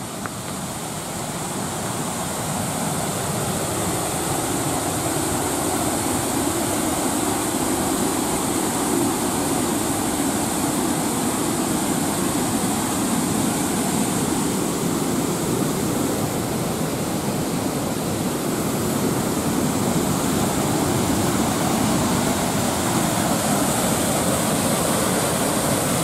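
Sakura-no-taki waterfall rushing: a steady, dense wash of falling water that grows louder over the first few seconds, then holds steady.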